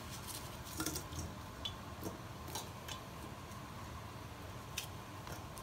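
A few faint, scattered ticks and clicks as broccoli florets are pulled apart by hand and set into a stainless steel steamer basket, over a steady low background hum.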